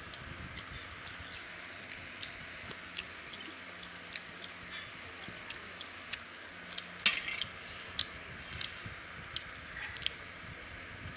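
Eating rice and curry by hand from stainless steel plates: scattered small clicks and taps of fingers and bangles against the plates, with soft squishy mixing and chewing. A brief jangle of clicks about seven seconds in is the loudest sound.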